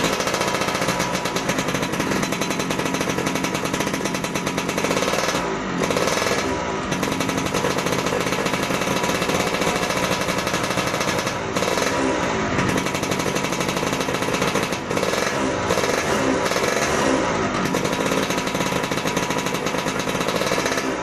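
Yamaha F1ZR two-stroke single-cylinder engine running through an aftermarket AHM Malaysia racing exhaust, a fast rattling beat that is blipped up and back down several times.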